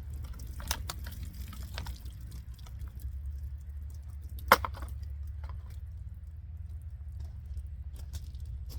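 Folding knife blade poking and scraping at a plastic water bottle: scattered crackles and clicks, with one sharp crack about four and a half seconds in, over a steady low hum. The blade is failing to cut through the bottle.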